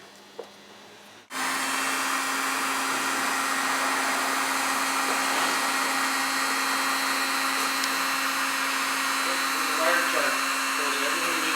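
Electric heat gun switched on about a second in and running steadily, blowing hot air to shrink heat-shrink tubing over a car stereo wiring harness.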